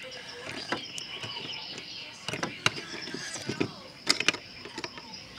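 Plastic dollhouse toys being handled: a doll and toy kitchen pieces clicking and tapping against each other in scattered sharp knocks, with a quick cluster of clicks about four seconds in.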